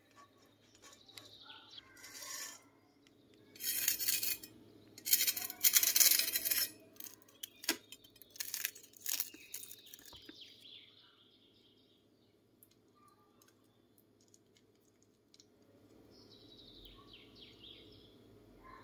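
Knife cutting through a crispy potato frittata on a wooden board: two loud crackling crunches of the crust, about four and six seconds in, followed by lighter scattered clicks.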